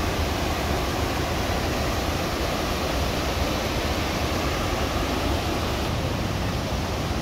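Steady rush of a waterfall, a constant even noise of falling water.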